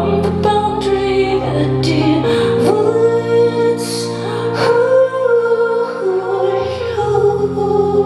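A woman singing live while accompanying herself on an electric keyboard, which holds sustained chords under the vocal line.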